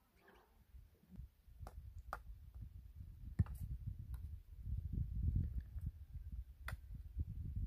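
Eating from a shared plate of rice: a handful of short, sharp clicks of spoon and fingers against the dish, over a low gusting rumble on the microphone.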